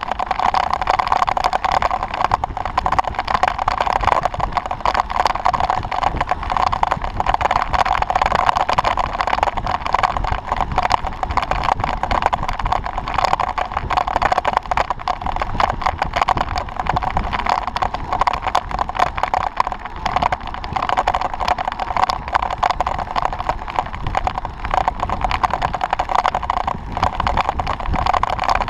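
Steady rushing wind and road noise from a road bicycle's handlebar camera riding at sprint speed, with a fast, constant clicking rattle throughout.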